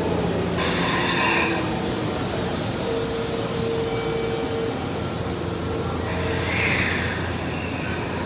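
JR Central 383 series electric express train rolling slowly along the platform as it brakes to a stop. Brief high squeals come about a second in and again near the end, and a steady tone holds for a second or two in the middle.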